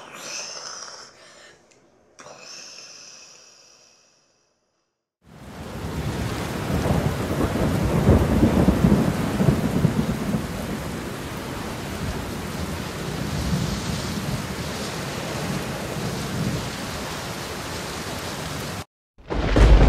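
Thunderstorm sound effect: steady heavy rain with rumbling thunder, starting about five seconds in after a brief silence. Near the end it cuts out for a moment and a loud, deep crash of thunder begins.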